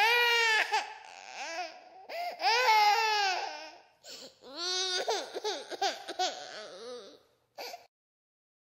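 A baby crying: high wavering wails in several bouts with short gaps between them.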